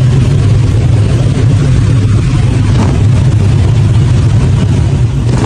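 Loud, steady drone of a small crop-dusting airplane's engine and propeller, heard inside the cockpit, with a constant rushing noise over it. The windshield has just been holed by a bird strike.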